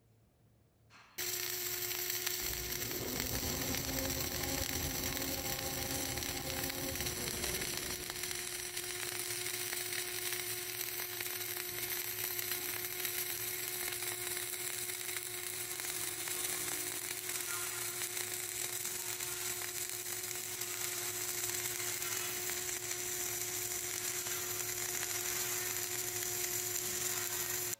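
Flux-cored arc welding of a pipe-to-plate fillet joint: the arc strikes suddenly about a second in, then crackles and sizzles steadily over a steady hum, and stops abruptly at the end.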